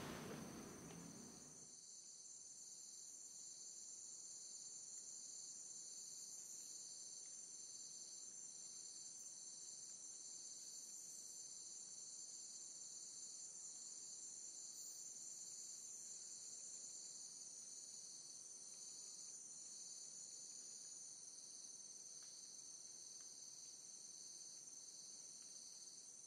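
Faint chorus of insects: several steady high-pitched tones with a soft pulse about one and a half times a second.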